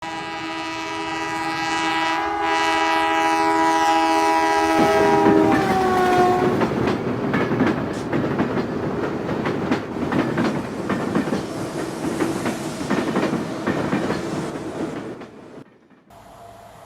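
Train horn sounding steadily for about five seconds, its chord sliding down in pitch as it ends. Wheels then clatter rhythmically over rail joints for several seconds before fading out.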